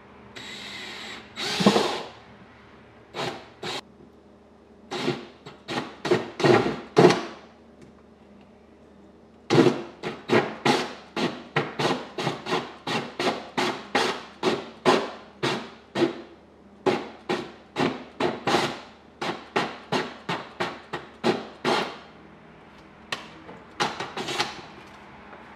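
Cordless drill run in short trigger bursts, boring into a plastic kayak hull wall: a few bursts with a twist bit for the pilot hole, then a step (cone) bit worked in with quick pulses about two a second to widen the hole to the traced circle.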